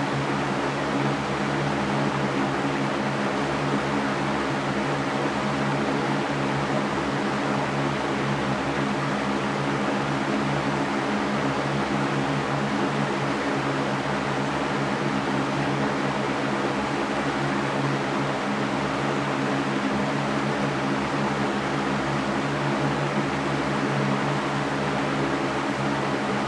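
Electric fan running steadily: an even rushing hiss of moving air over a low motor hum, unchanging throughout.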